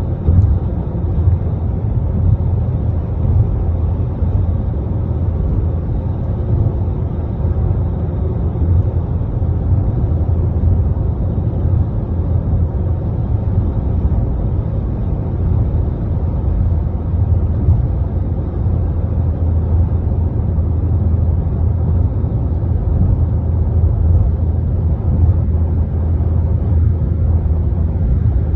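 Steady low rumble of a moving vehicle: road and wind noise with no clear engine note or separate events.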